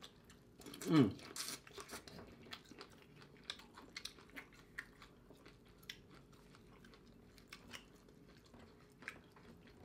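Close-miked chewing and biting of corn on the cob and other vegan boil food, with scattered small crunches and mouth clicks. About a second in, a short voice sound drops steeply in pitch.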